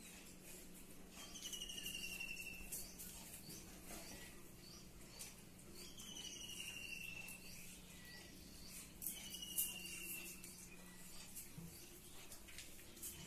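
A bird's high whistled call, falling in pitch and about a second long, repeats four times about four seconds apart. Under it come soft clicks and chewing from a Pomeranian eating watermelon out of a steel bowl, loudest a little past the middle.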